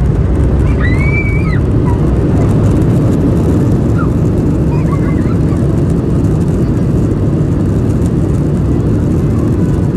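Boeing 737-900ER's CFM56-7B engines in reverse thrust during landing rollout, heard from inside the cabin: a loud, steady, deep rumble of engine and runway noise, easing slightly near the end.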